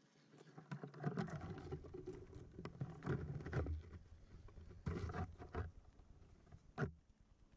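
Kayak moving slowly through flooded brush: irregular paddle splashes with scraping, rustling and knocking against the hull and paddle, in several clumps, ending with one sharp knock near the end.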